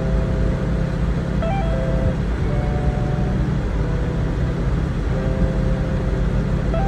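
Steady low rumble of a car driving, heard from inside the cabin, with a slow melody of held notes playing over it.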